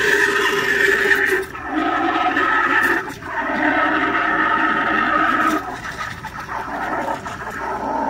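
Espresso machine steam wand frothing milk in a mug: a loud hiss with a steady screeching tone that shifts in pitch and level a few times as the wand sits deeper or shallower in the milk.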